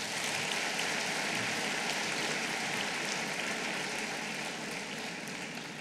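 Large audience in a hall applauding, a steady wash of many hands clapping that eases off slightly near the end.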